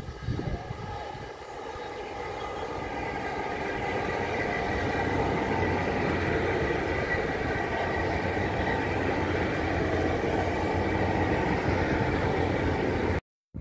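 Great Western Railway Intercity Express Train (Class 800-series bi-mode) passing close by on diesel power: a steady whine from its underfloor engines over the rumble of the wheels on the rails. It builds over the first few seconds, holds loud, and cuts off abruptly near the end.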